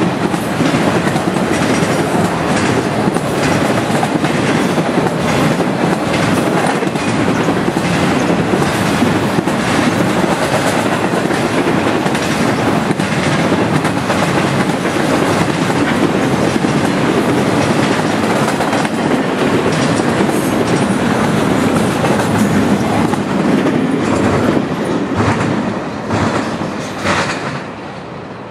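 Cars of a Norfolk Southern intermodal freight train rolling past, steel wheels clicking over the rail joints. The sound drops away near the end as the last car goes by.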